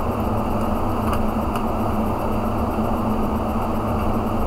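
Steady whir of a fan with a low hum underneath, unchanging throughout, with a couple of faint ticks about a second in.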